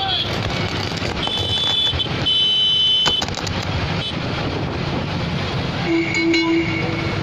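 Tractor engines running along a road while vehicle horns honk: two short, high-pitched toots about a second and two seconds in, then a longer horn of a different pitch near the end.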